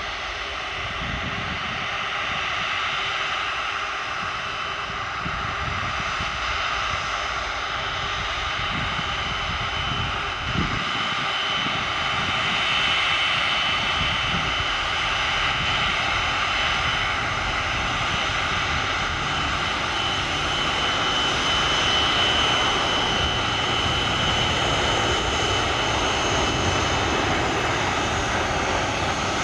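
Airbus A330-300 jet engines, Rolls-Royce Trent 700s, running steadily: a high whine over a continuous rumble, slowly growing a little louder.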